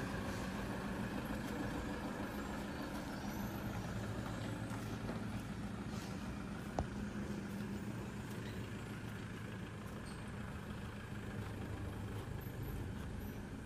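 A motor vehicle's engine idling steadily, a low even hum, with one sharp click about seven seconds in.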